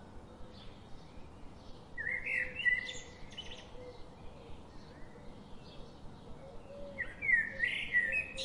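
A bird singing short, chirping phrases twice: once about two seconds in and again near the end. Faint regular ticks, about two or three a second, run underneath.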